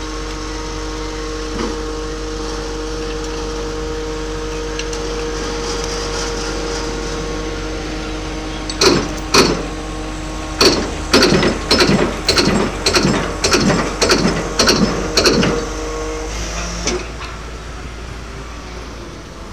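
Piling rig's engine running steadily, then a run of about a dozen heavy blows, roughly two a second, as a 5-ton piling hammer strikes the top of a 250 mm square concrete pile being driven into very soft soil. The engine note drops away after the blows stop.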